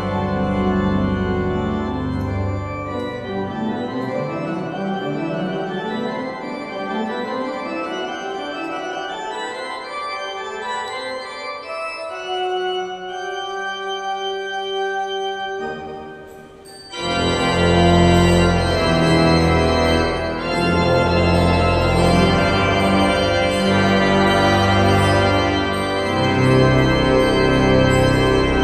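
Pipe organ playing: quick rising runs of notes over a bass line, then a softer, thinner passage, then about 17 seconds in a loud full-organ entry with deep bass chords.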